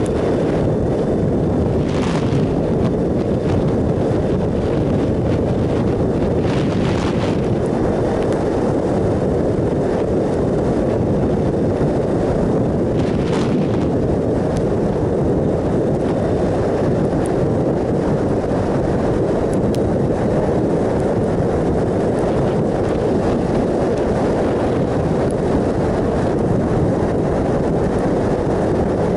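Steady wind rush over the microphone of a 2007 Triumph Sprint ST 1050 at road speed, with the three-cylinder engine's steady drone beneath it. A few brief hissy swells come through, about 2, 7 and 13 seconds in.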